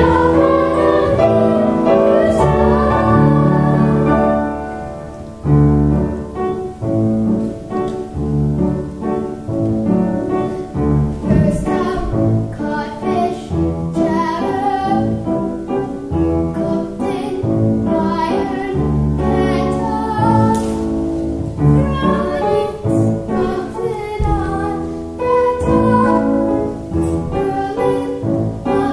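Children singing a stage-musical song with piano accompaniment: a group of young voices together for about the first four seconds, then after a short break a single girl's voice carries the melody solo.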